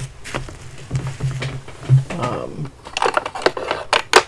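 Fountain pens being handled while fetched from a humidor: a string of small clicks, knocks and rattles, thickest about three seconds in.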